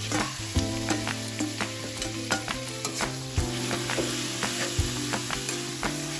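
Shredded chicken breast sizzling in oil in a wok, stirred with a metal spatula that scrapes and taps against the pan at irregular moments.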